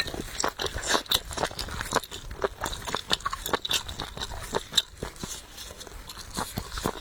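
Close-miked eating: a person chewing and biting food with frequent, irregular crunchy clicks and wet mouth sounds.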